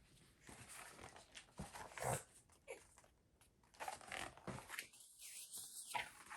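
Faint, intermittent rustling of a picture-book page being turned and handled.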